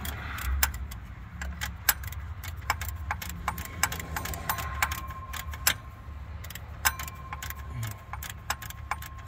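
Irregular sharp metal clicks and clinks from hand tools and bolts being worked behind the alternator while a new serpentine belt tensioner assembly is fitted, over a low steady hum.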